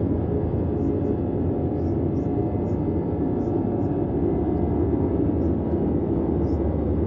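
Red (Brownian) noise: a steady, deep hiss with most of its weight in the low end and little treble, unchanging throughout.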